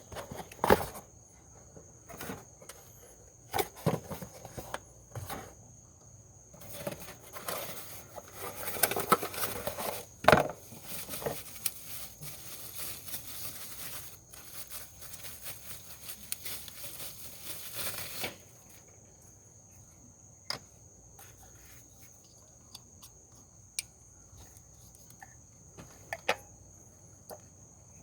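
Hand work on ignition coils: scattered clicks and knocks of plastic and metal parts being handled, with a stretch of rustling and crinkling in the middle lasting about ten seconds.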